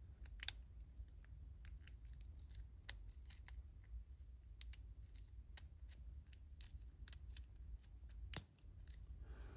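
Faint, irregular metallic clicks of a lock pick working the pin stacks of a Union 5-pin oval cylinder, pins setting under tension, with a sharper click about eight seconds in, over a low steady hum.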